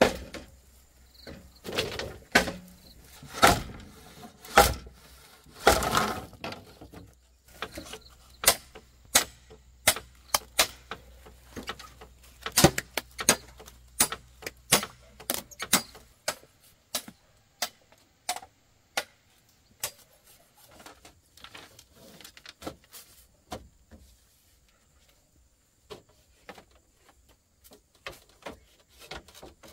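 An irregular run of sharp knocks and clacks, like hard objects being struck or handled. They come thick and loud in the first half, then thin out to scattered light taps.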